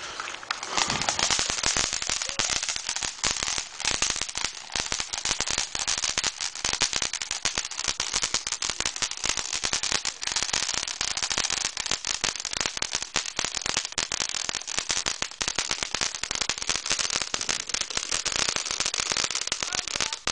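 Consumer fireworks going off in a rapid, continuous crackle of many small pops, starting about a second in.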